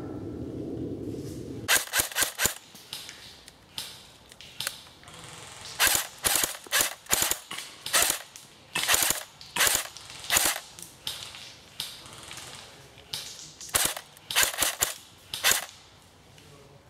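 AK-pattern airsoft rifle firing: a quick burst of four shots about two seconds in, then single shots and short pairs at irregular intervals, each a sharp snapping crack.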